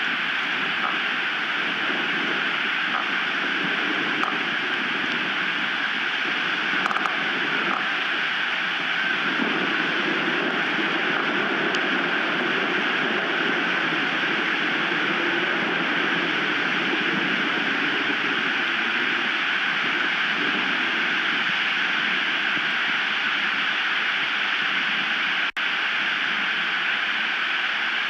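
Steady rushing noise of high wind on the nest camera's outdoor microphone, its lower part swelling and easing with the gusts, with a brief dropout near the end.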